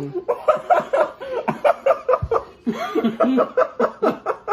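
People laughing and chuckling in quick repeated bursts.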